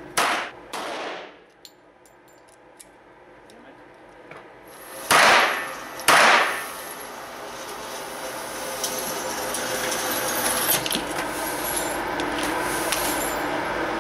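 Four pistol shots from a Walther P22 .22 LR pistol echoing in an indoor range: two about half a second apart at the start, and two about a second apart some five to six seconds in. In the second half a steady rushing noise with scattered light clicks builds up.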